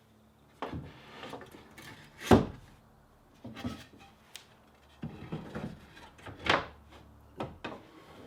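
A raker-tooth crosscut saw and a wooden spacer board being set into a workbench face vise: a series of wooden knocks and clunks, the loudest about two seconds in and again past six seconds.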